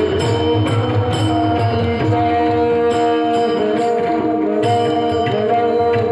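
Music: held melodic notes over a steady beat of sharp percussion strikes.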